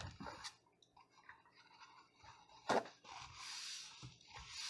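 A single knock, then paper towel rustling for about a second as a sheet is handled off the roll.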